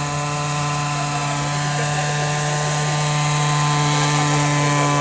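Hirobo Huey gasoline-engined radio-control model helicopter in flight, its engine and rotor running at a steady pitch. It gets a little louder toward the end.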